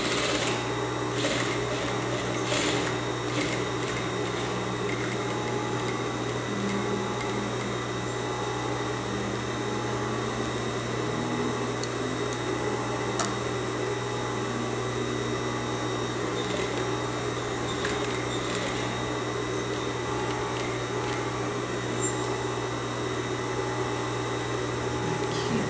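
Industrial sewing machine running steadily, its motor humming as it topstitches the waistcoat's back strap through cloth and lining.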